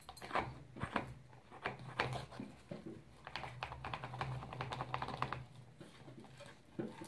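A metal spoon clicking and scraping as baking soda is tapped off into a plastic funnel and scooped from a cardboard box, with a quick run of small clicks about halfway through.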